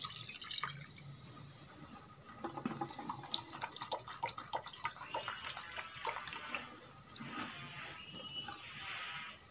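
Liquid organic fertiliser being poured from a plastic jerry can into a glass, with small clicks and knocks of the glass and can in the hands.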